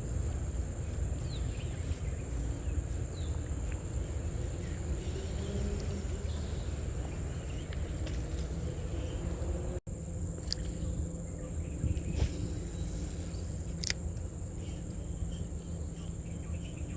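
Insects chirring in a steady, high-pitched drone over a constant low rumble, with a few faint sharp clicks.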